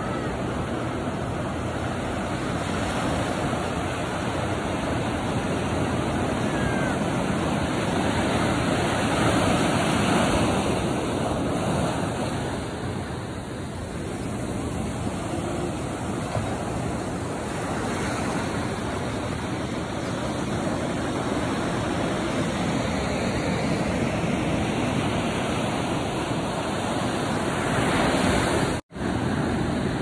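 Ocean surf breaking and washing up a sandy beach: a steady rush of water that swells and ebbs as waves come in. The sound drops out for an instant near the end.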